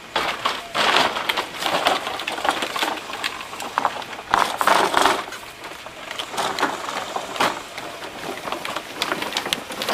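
Irregular clattering, scraping and knocks of a walk-behind lawn mower being moved and handled.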